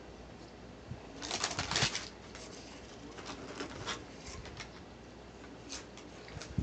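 Paper sandwich wrapper rustling and crinkling as it is handled and folded, with a loud burst of crackling between about one and two seconds in, then scattered lighter crackles.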